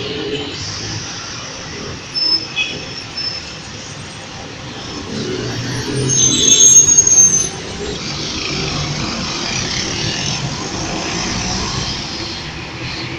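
City buses in traffic, one passing close by, loudest about six seconds in, with short high-pitched squeals, then its engine running steadily as it pulls away.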